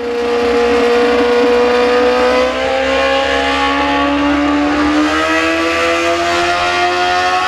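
Honda CBR sportbike engine held at high revs while the bike stands still, its pitch climbing slowly and steadily.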